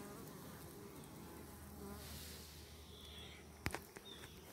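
Honeybees buzzing faintly at a hive entrance, with a sharp click about three and a half seconds in and a few short high chirps near the end.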